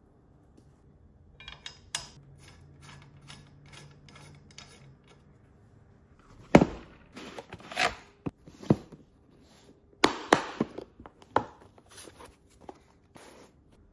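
Quick, faint clicking as a part is fitted to a rifle's handguard, then louder sharp clicks and knocks as a hard plastic case is handled and opened.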